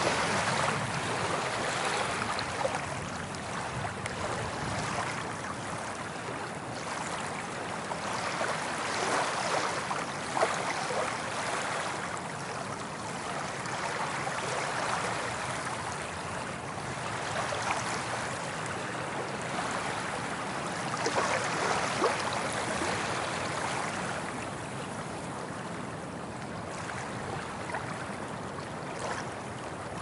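Soft ocean waves breaking and washing up a beach: a steady hiss of surf that swells and eases every several seconds as each wave comes in.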